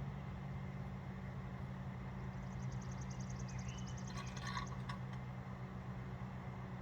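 Microwave oven running with a steady low hum. From about two and a half seconds in, a rapid, even high-pitched ticking comes in for about two seconds, with a few sharper crackles near its end.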